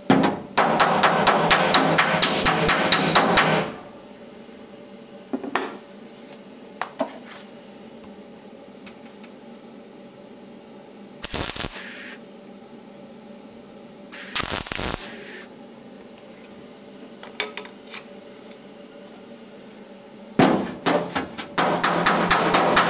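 Rapid hammer-and-dolly blows on a car's steel body panel, about six to seven a second for three seconds, flattening the freshly tacked seam so the panel doesn't distort. Then two MIG tack welds, each a crackling buzz under a second long, about three seconds apart. Near the end come more rapid hammer-and-dolly blows.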